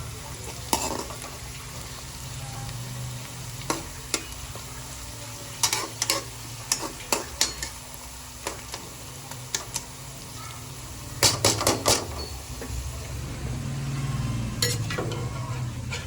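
Food frying in a pan with a steady sizzle while a metal utensil stirs it, clinking sharply against the pan, with quick clusters of strikes about six seconds in and again about eleven seconds in.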